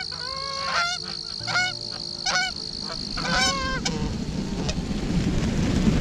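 Canada geese honking as the flock comes in to land: about five spaced honks in the first four seconds, each with a breaking, upturned pitch, over a steady high tone that stops about four seconds in. A rush of noise builds over the last two seconds.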